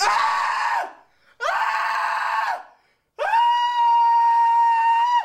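A man screaming in a high voice three times, short and long, the third a long scream held on one steady pitch.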